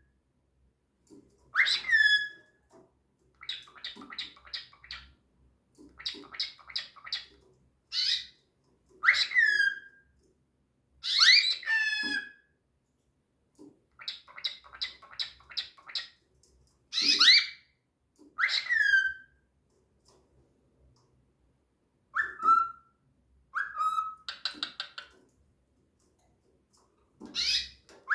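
Pet bird calling and chattering: a string of loud whistled calls, many sliding down in pitch, broken up by quick runs of repeated short notes, with brief pauses between phrases.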